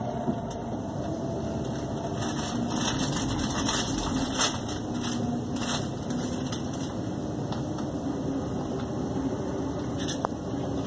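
Onboard a Class 350 Desiro electric multiple unit running at speed: steady rumble of wheels on the rails with a low hum. A run of clicks and rattles comes in the middle, loudest about four seconds in, and there is one more sharp click near the end.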